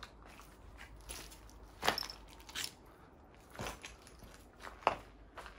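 Footsteps crunching and crackling over broken plaster and debris on the floor, with a few sharper cracks, the loudest about two seconds in and near the end.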